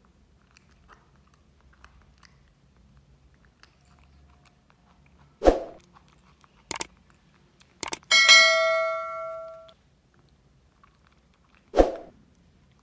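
Sound effects from a subscribe-button animation. A short pop comes about five and a half seconds in, then two mouse clicks, then a bell ding that rings and fades over about a second and a half, and another pop near the end.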